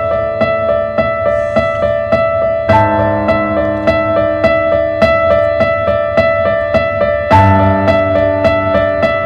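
Background piano music: an even, steady pattern of repeated notes, with the chord changing twice.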